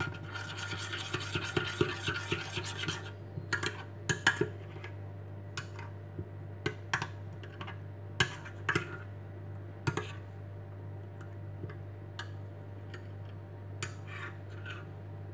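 A metal spoon stirring a thick paste in a glass bowl. It scrapes steadily for the first three seconds or so, then gives scattered clinks against the glass.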